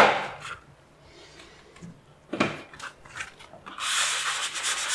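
Foam-backed P150 abrasive pad rubbed by hand over dried smoothing filler on a ceiling: a scratchy sanding rub that starts about three-quarters of the way in, with a brief scrape a little past halfway. A sharp click comes right at the start.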